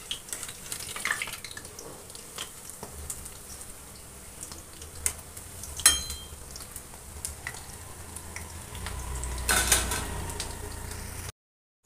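Lauki kofte (bottle-gourd fritters) deep-frying in hot mustard oil in an iron kadhai, a steady sizzle, with a slotted steel spoon clinking and scraping against the pan a few times, most loudly near the end. The sound drops out briefly just before the end.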